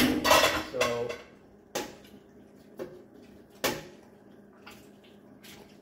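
Serving ladle scraping and knocking against the pot and plates as curry is dished out. A longer clatter comes at the start, then about five single sharp clinks, roughly a second apart.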